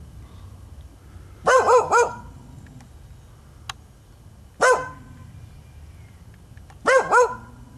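A dog barking in short angry volleys at an intruder it is guarding its territory against: three quick barks, a single bark, then two more.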